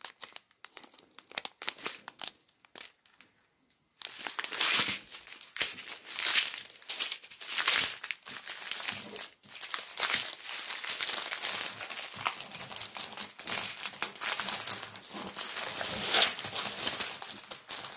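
Clear plastic bags of diamond painting drills crinkling and rustling as they are handled. Only a few faint rustles come in the first few seconds, then the crinkling is continuous from about four seconds in.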